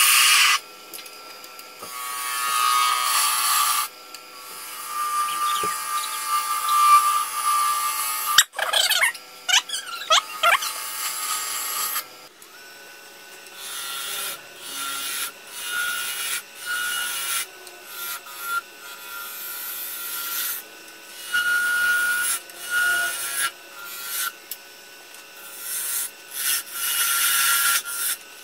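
Wood lathe spinning a beech blank while a turning tool cuts into it in repeated short passes: hissing, scraping cuts that start and stop every second or so over the lathe's faint steady motor hum. A brief wavering squeal comes from the tool on the wood about nine seconds in.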